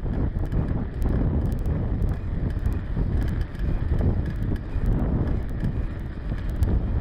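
Wind buffeting the microphone while a mountain bike is ridden along a rough asphalt lane. Under it is a steady rumble of the tyres on the road and scattered small rattling clicks.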